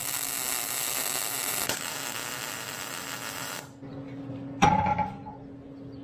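Wire-feed (MIG) welder arc welding steel pipe, a steady crackling hiss that cuts off suddenly after about three and a half seconds. A single sharp metal clank with a short ring follows about a second later, over a faint steady hum.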